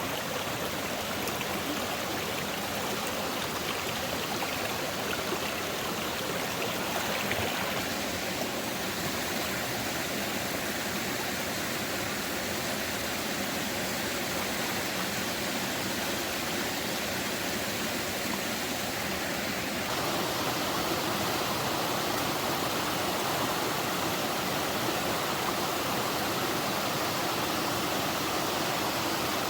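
Steady rushing of flowing stream water, an even noise without separate splashes, becoming a little louder about two-thirds of the way through.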